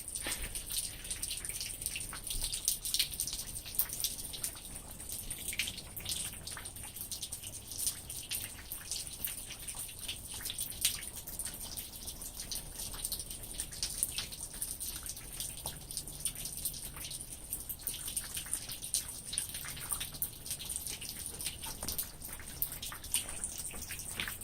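Rain falling, with many irregular drops and drips ticking close by over a steady hiss.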